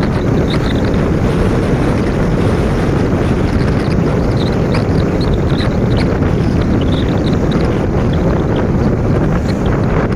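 Steady loud wind rush over the microphone of a moving motorcycle.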